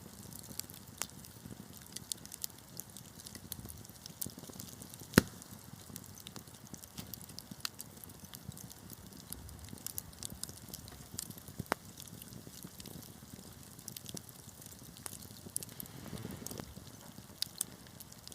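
Wood fire crackling: irregular sharp pops and snaps over a low, steady rush of flames, with one loud pop about five seconds in.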